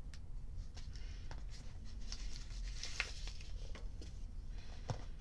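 Faint handling noises of a metal pocket lighter and plastic bubble mailers: a few small scattered clicks and knocks, with a soft rustle of plastic about two seconds in.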